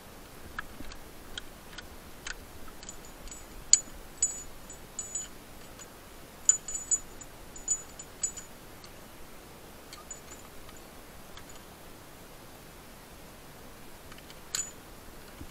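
Metal climbing hardware clinking: a run of sharp metallic clicks and short high-pitched rings, bunched in the middle with one more near the end.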